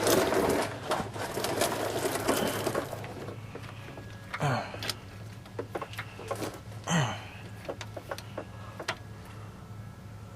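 An impact wrench hammers on a sway bar end link nut for about three seconds, a rapid rattle. Quieter metal clicks and two short falling squeaks follow over a low steady hum.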